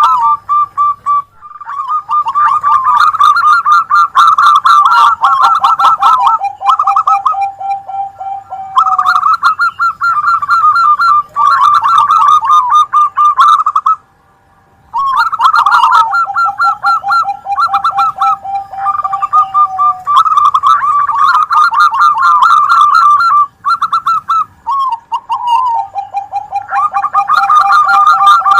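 Several zebra doves (perkutut) cooing, their rapid trilled coos overlapping, one voice pitched lower than the others. The cooing breaks off for about a second halfway through, then resumes.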